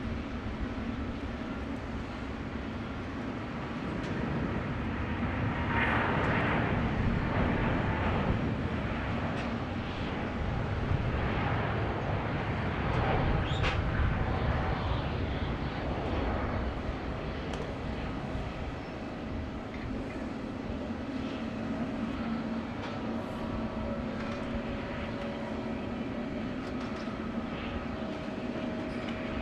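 Jet aircraft engines running with a steady hum and a whine. The sound swells louder about six seconds in and again around twelve to fourteen seconds in.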